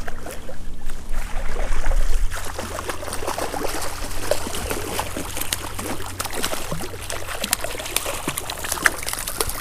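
Shallow creek water splashing and trickling, with irregular sharp splashes as a hooked brown trout thrashes while being reeled in. A low rumble runs beneath it.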